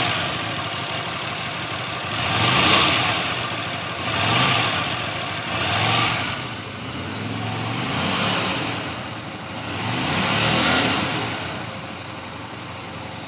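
Hyosung GT125R's 125cc V-twin engine revved up and let fall back about six times, then settling lower near the end. The owner is chasing a strange noise that shows up as the engine decelerates and the revs drop off.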